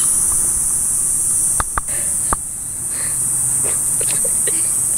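Insects buzzing outdoors, a steady high-pitched drone, with three sharp clicks around two seconds in.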